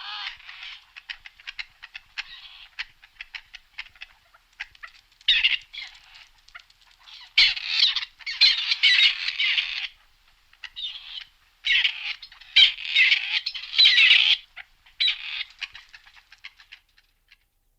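Grey partridge calling in a series of grating, scratchy bursts separated by short pauses, loudest around the middle.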